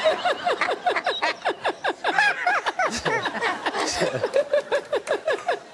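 An elderly man laughing hard: a long run of quick, high-pitched laughing pulses, each dropping in pitch, which dies away near the end.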